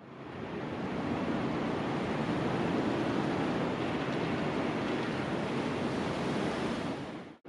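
Steady rush of strong wind and choppy sea, with wind buffeting the microphone; it fades in at the start and fades out at the end.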